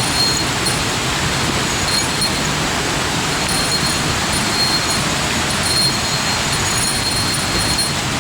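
Mountain stream water rushing steadily over rocks, an even, loud hiss with no pauses.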